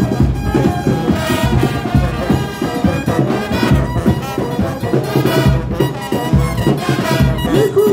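Brass band playing a lively tune: trumpets, trombones and tuba over a steady beat.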